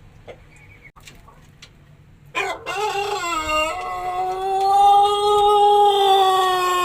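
Pelung rooster crowing: after a couple of quiet seconds, one long crow begins with a short rising opening and then a drawn-out held note that swells louder. The crow is that of a bird after ngorok, a throat illness with mucus in the throat that changes a Pelung's crow.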